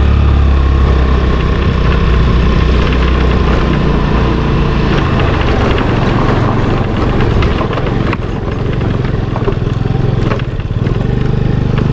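Motor scooter ridden over a rough, stony dirt road: the engine runs steadily under a low rumble, with short knocks and rattles from the bumpy surface from about two-thirds of the way in.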